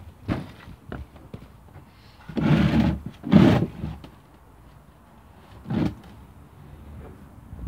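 Plastic water butt being twisted round on its plastic stand, scraping plastic against plastic: two loud rubs a little after two seconds in and at about three and a half seconds, and a shorter one near six seconds, with small knocks between.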